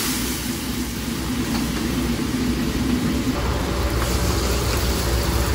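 Pieces of cured meat frying in a wok of hot oil, the oil sizzling and bubbling hard, over the steady low rumble of a commercial gas wok burner.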